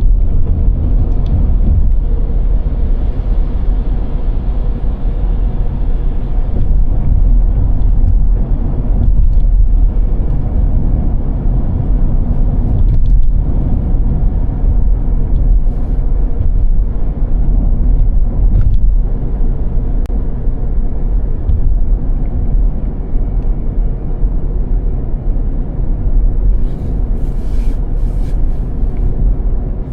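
Car driving, a steady low rumble of engine and tyres on a snowy road.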